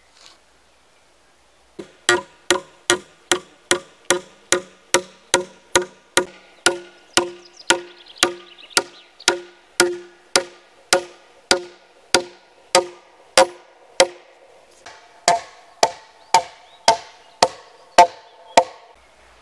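Hammer blows on a log joint of a timber roof frame, struck steadily at about two a second, each with a short ringing pitch. The blows stop briefly about three quarters of the way through, then resume with a higher ring.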